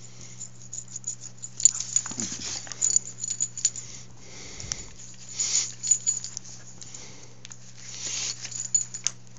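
Australian cattle dog play-fighting with a person's hand: irregular scuffling with many quick clicks and short rustles, over a steady low hum.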